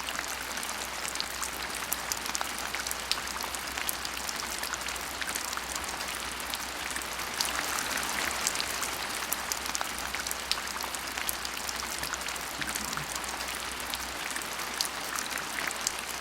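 Oil sizzling and crackling in a hot frying pan, a steady dense patter of small pops.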